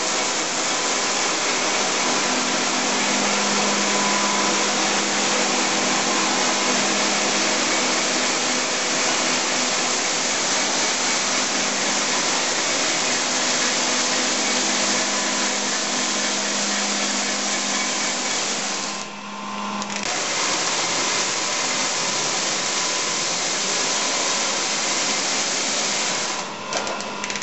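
Tape rewinding machine running, winding several rolls of narrow tape with a steady whirr and a low hum. The noise dips briefly about two-thirds through, and the hum drops out after it.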